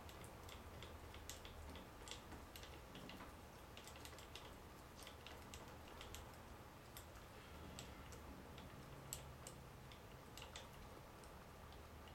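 Faint, irregular light clicks from a small bench lathe's carriage being wound along by hand at its handwheel, with the lathe's motor not running.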